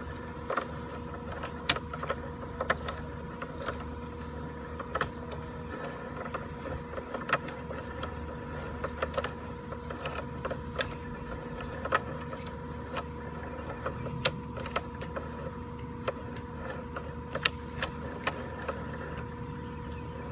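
Sewer inspection camera rig: a steady electrical hum with two steady tones, broken by irregular sharp clicks and knocks as the push cable is drawn back out of the drain line.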